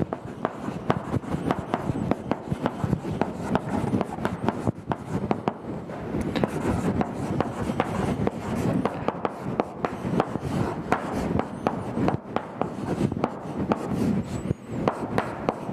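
Chalk writing on a blackboard: a steady run of quick taps and scratches as the chalk strokes out letters and symbols.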